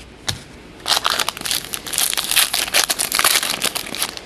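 Trading-card pack wrapper crinkling as a pack is handled and opened and the cards pulled out. The crinkling starts about a second in and goes on in a quick run of crackles.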